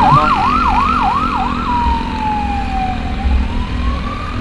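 Electronic emergency-vehicle siren on a fast yelp, about three cycles a second, switching about a second and a half in to a slow wail that falls and then rises again, with engine and road rumble of traffic underneath.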